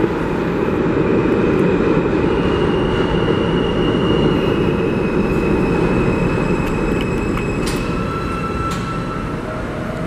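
Steady rumble of a New York subway train in an underground station, slowly easing off. Thin high tones and a couple of sharp clicks come in during the second half.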